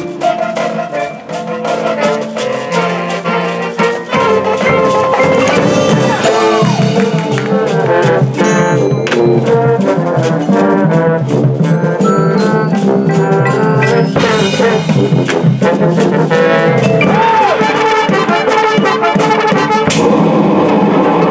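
High school marching band playing its field show: brass over percussion. The music is quieter and broken up for the first few seconds, then the full band plays loud and steady from about four seconds in.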